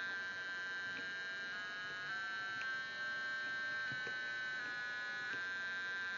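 Square-wave tone from a homemade single-instruction breadboard computer, played through a small transducer. The steady tone changes pitch in small steps about eight times as the DIP switches setting the program's delay period are flipped, with faint switch clicks at some of the changes.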